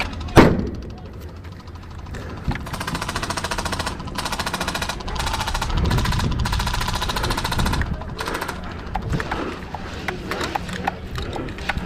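An airsoft grenade going off with one sharp bang about half a second in. It is followed by long bursts of rapid full-auto fire from airsoft guns, with shorter scattered shots near the end.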